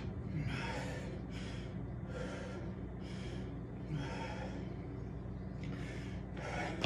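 A man breathing hard from exertion, heavy breaths in and out about once a second, over a faint steady low hum.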